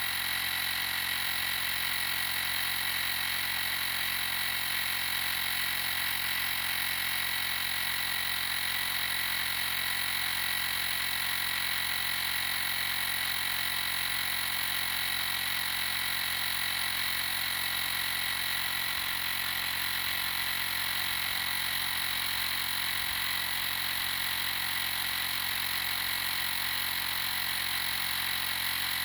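TackLife portable tire inflator's small electric air compressor running steadily while pumping up a tire, with a steady high whine over the motor noise.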